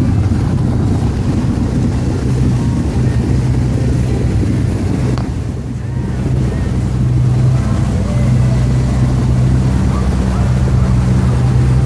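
Outboard-motor boat underway: a steady engine drone with water rushing and splashing past the hull and wind buffeting the microphone. The engine sound drops briefly about halfway through, then comes back up.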